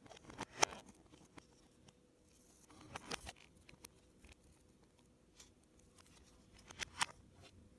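Faint, scattered clicks and rustles of small plastic toy parts being handled and fitted together during reassembly of a toy elevator, in a few short clusters.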